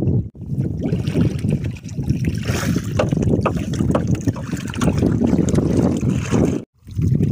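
Water sloshing and splashing against the side of a small boat as a swimmer moves alongside it, with heavy wind buffeting the microphone. A few sharp ticks come in the middle, and the sound drops out for a moment near the end.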